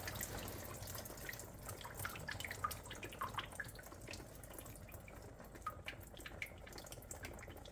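Faint water splashing and dripping inside a running Whirlpool dishwasher, with scattered small ticks and drips over a steady wash.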